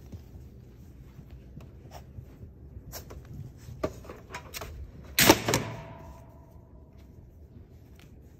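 Light taps and scuffs of young puppies moving about on a play mat, then a loud clattering knock a little past halfway that rings on briefly as it fades.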